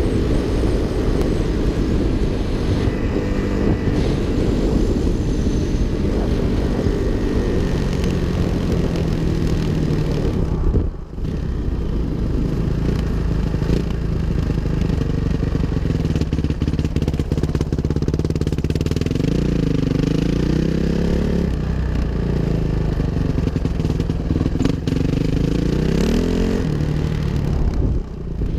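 2005 Suzuki RM-Z 450's single-cylinder four-stroke engine running under way, its revs rising and falling as the rider rolls on and off the throttle. The sound dips briefly about eleven seconds in and again near the end.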